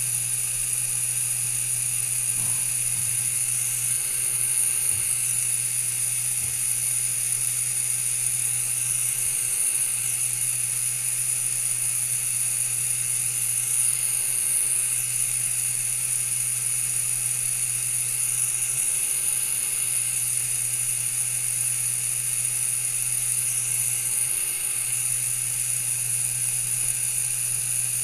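Small electric motor of a rotating display turntable whirring steadily, with a faint sweep that comes back about every five seconds as it turns.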